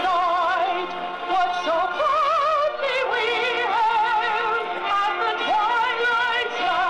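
Music with a singing voice, long held notes wavering in heavy vibrato.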